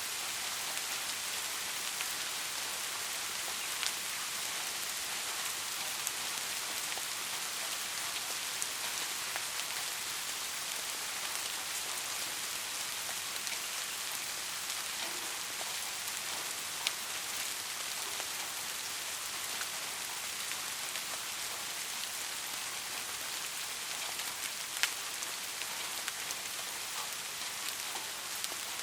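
Steady rain falling, an even hiss with a few louder single drops ticking out of it now and then.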